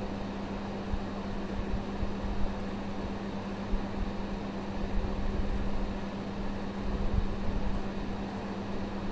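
Steady background hum with a constant low tone and a faint rumbling hiss beneath it, with no speech.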